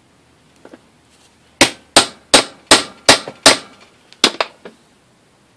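Small ball-peen hammer striking the end of a toolbox lock's shaft held in a steel bench vise, peening the metal over so it mushrooms and holds the lock's arm tight. A couple of light taps, then six sharp, evenly spaced blows, about three a second, and a few lighter ones near the end.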